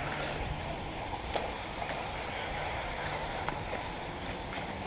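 1/8-scale electric RC off-road buggies running on the dirt track, heard as a steady rushing noise mixed with wind on the microphone. A couple of faint clicks come about a second and a half in and again past the three-second mark.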